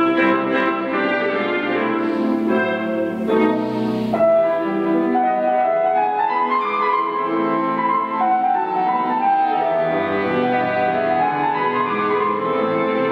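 Slow classical instrumental music with piano and strings; from about six seconds in, a melody rises and falls in long arching phrases over held chords.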